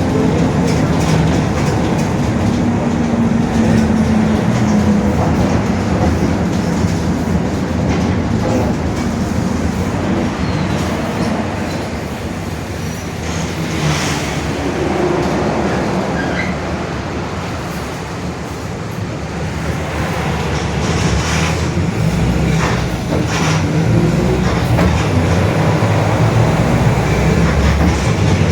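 Mercedes-Benz OF-1721 BlueTec 5 city bus under way: diesel engine running and drivetrain rumbling, with a growling differential. The sound eases off in the middle, builds up again toward the end, and has a few brief rattles.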